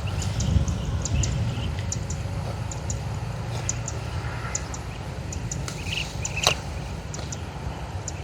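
Open-field ambience: a low, uneven rumble with scattered short, high chirps, and one sharp click about six and a half seconds in.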